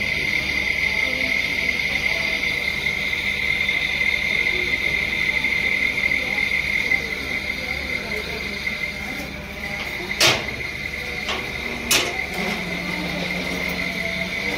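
A steady, high-pitched insect trill that holds one pitch throughout, with two sharp knocks about ten and twelve seconds in.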